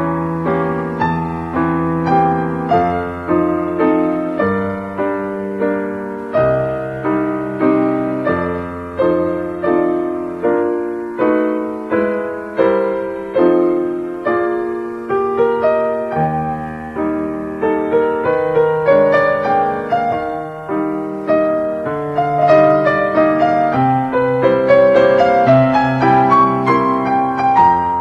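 Background piano music: a calm melody over chords, notes struck at a steady pace of about one a second and each left to ring and fade.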